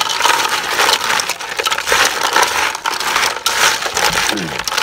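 Snail shells clattering against each other and against the sides of a metal pot as hands toss and mix them, a dense, continuous rattle of small clicks.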